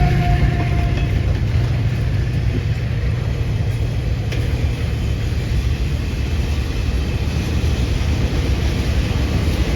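Freight train wagons rolling past with a steady low rumble on the rails. A pitched diesel engine tone fades out in the first second.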